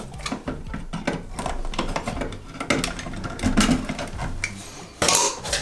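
Small clicks and knocks of needle-nose pliers and metal as a bare copper wire is bent into a hook at a switch's wall box, with a louder scrape about five seconds in.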